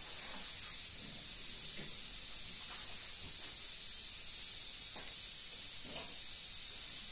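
Scissors cutting through a sheet of craft foam (foamy) and a paper template, a few faint irregular snips over a steady hiss.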